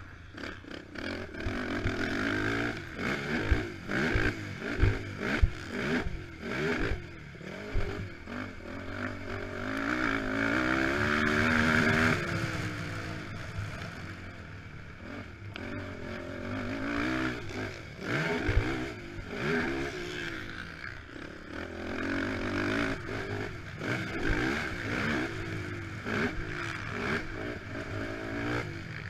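Honda TRX450R quad's single-cylinder four-stroke engine revving up and down as it is ridden hard over a dirt track, with a long rising rev about ten seconds in. Knocks and clatter from bumps and landings come through now and then.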